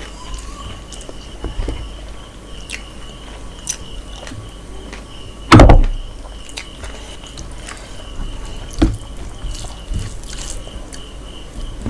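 A person eating close to the microphone: scattered wet mouth clicks and smacks of chewing mutton and rice. A loud thump comes about halfway through and a smaller one a few seconds later.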